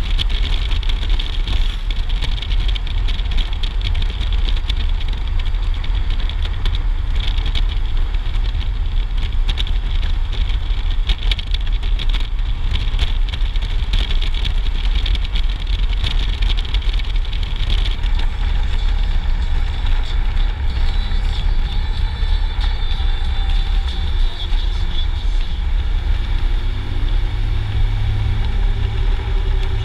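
Touring motorcycle riding at road speed, heard from a helmet camera: steady wind rush and low buffeting over the engine and tyre noise. Near the end the engine note comes through more clearly as the bike rides into a road tunnel.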